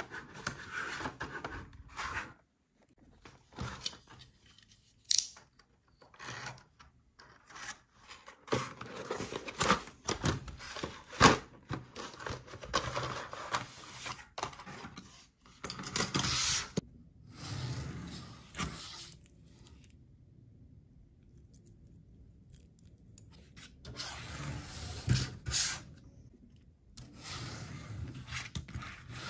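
Hands opening a cardboard toy box: cardboard scraping, rubbing and tearing in irregular bursts, with sharp clicks and taps. There is a quiet stretch of a few seconds past the middle.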